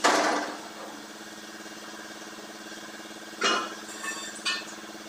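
A sharp metallic clink at the start that rings briefly, then two shorter clinks about three and a half and four and a half seconds in, metal against metal during brazing of a radiator tank. Under them a machine hums steadily.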